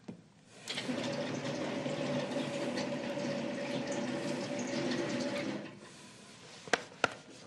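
Motorised projection screen rolling up: a steady motor hum with a whirr, starting just under a second in and stopping about two seconds before the end. Two sharp clicks follow near the end.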